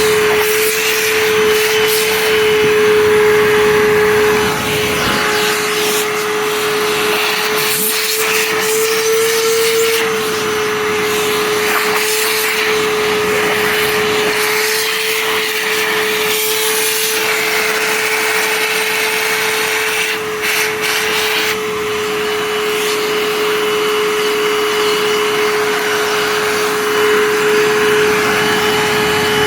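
Hoover Fold Away upright vacuum cleaner running steadily: a constant motor whine over the rush of air.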